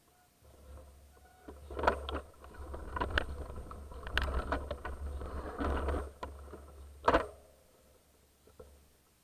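Mountain bike riding over a gravel trail, heard through a mounted action camera: a low rumble of wind and rolling tyres with sharp knocks and rattles as the bike jolts, the loudest about two and seven seconds in. It dies away as the bike comes to a stop near the end.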